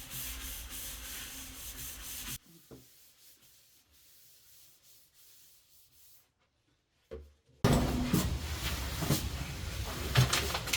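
Paper towel rubbing back and forth on a tabletop, wiping off black scuff marks left by rubber feet. The rubbing stops after about two and a half seconds, leaving near silence for several seconds, then resumes louder and scratchier for the last three seconds.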